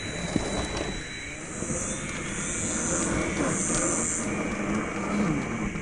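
Scale RC rock crawler's electric motor and geartrain whining as it crawls over rock, the pitch rising and falling with the throttle, over a steady hiss.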